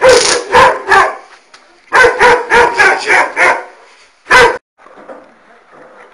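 A dog barking loudly and repeatedly: about three barks, a short pause, a quick run of about six barks, then one last bark, after which the barking stops.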